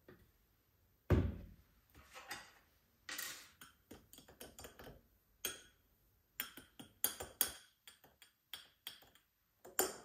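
Clinks and knocks of crockery and utensils being handled, with a heavier thump about a second in and a quick run of clicks past the middle.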